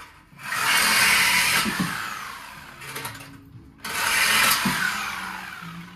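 Handheld power tool cutting through a car's steel exhaust pipes in two bursts, each starting sharply and fading off over a couple of seconds.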